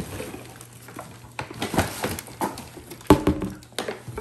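Unpacking noise: cardboard packing sheets and cookware being handled, giving a few short knocks and light scraping. The loudest knock comes about three seconds in.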